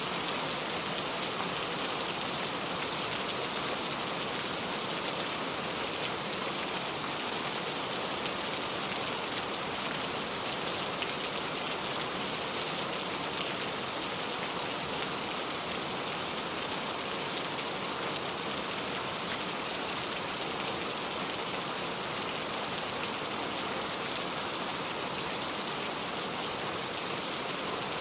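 Heavy rain pouring steadily, a dense even hiss of drops without breaks or thunder.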